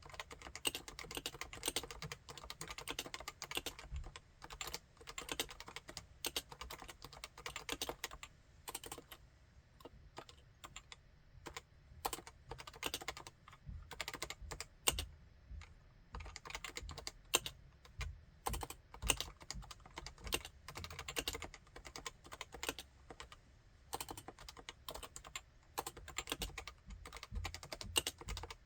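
Continuous typing on a Topre Realforce 87UW keyboard with Topre electrostatic capacitive (contactless) switches: a dense, uneven stream of keystrokes with a couple of brief lulls.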